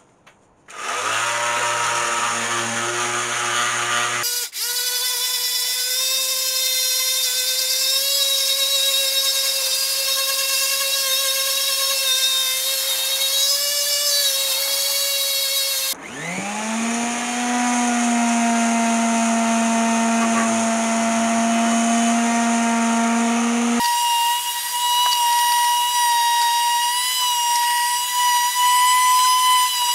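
Electric hand sander running steadily as it sands pallet wood, a loud motor hum that starts about a second in. The pitch jumps at a few abrupt cuts, and about halfway through the motor spins up from low to full speed.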